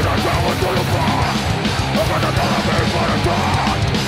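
A heavy rock band playing live: distorted electric guitar, bass guitar and drum kit, with the singer's vocals into a microphone.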